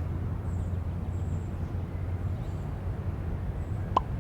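Steady low rumble of town background noise, like distant traffic, with faint high chirps and a single short click near the end.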